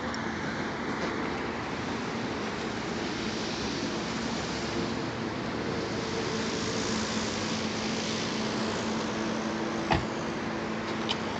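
Chevrolet Aveo under the bonnet: the engine and radiator cooling fan running steadily with a low hum. A sharp crack sounds about ten seconds in, followed by a fainter click about a second later.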